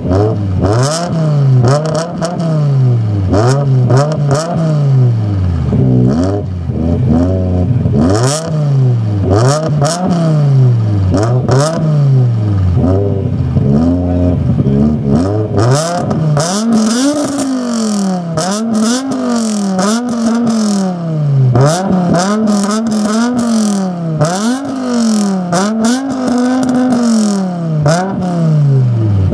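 BMW M5 E60's V10, breathing through an aftermarket Botter exhaust, free-revved at a standstill in quick repeated blips about every two seconds, with crackles as the revs drop. About halfway through the blips start reaching higher revs and come slightly faster.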